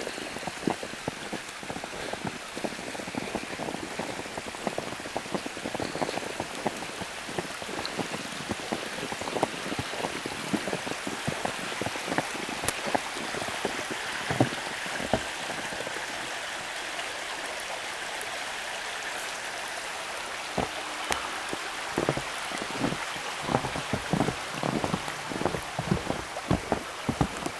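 Snowstorm precipitation falling on the forest: a steady hiss with dense, irregular ticks and pattering, the taps larger and deeper in the last few seconds.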